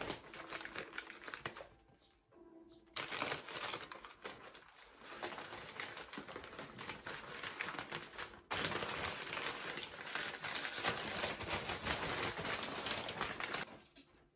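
Packing material crinkling and rustling as a wrapped crystal is unwrapped by hand, in three stretches of dense crackling, the last the loudest, stopping shortly before the end.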